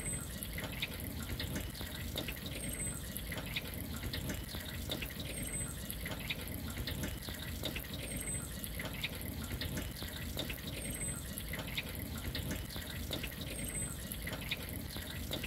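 Water dripping and trickling from drip-irrigation emitters onto potting soil: many small, irregular drips over a low steady rumble.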